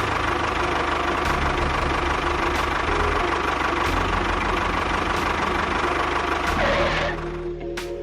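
An engine running steadily with a low, even chugging, like a tractor engine at idle; it eases off near the end.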